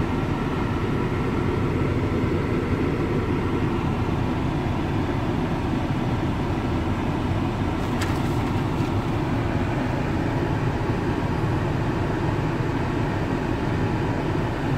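Volkswagen Touareg running with its air conditioning on, heard from inside the cabin as a steady engine and blower noise. With the new air-conditioning compressor fitted, the engine noise it had been making is gone.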